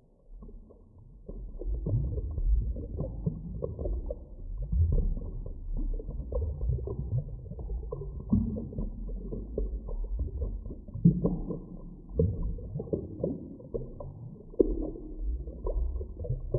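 Underwater sea ambience: a muffled low rumble with many short rising blips, fading in over the first second or two.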